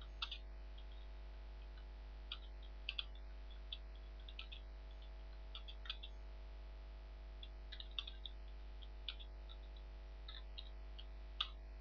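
Computer keyboard keys clicking in short irregular runs as a sentence is typed, over a faint steady electrical hum.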